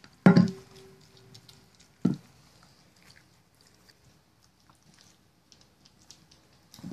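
A stainless steel dog bowl set down on a wooden floor with a loud clank that rings on for about a second, then a second knock about two seconds in. After that, faint scattered ticks of dogs licking and chewing at frozen treats in their bowls.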